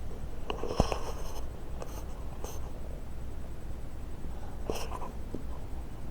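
A few brief scratchy rustles in a small room, with a sharp thump about a second in, over a low steady hum.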